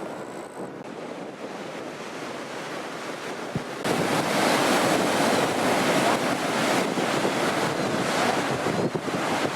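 Ocean surf washing and breaking, with wind buffeting the microphone. It gets suddenly louder about four seconds in.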